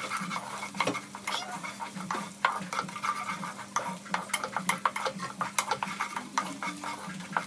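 Wooden spatula stirring onions sautéing in oil in a metal pot, with irregular scrapes and taps against the pot over a light sizzle.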